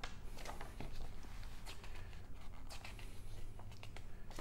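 Paper rustling as a decal sheet and instruction booklet pages are handled and turned: a string of short, crisp rustles over a low, steady hum.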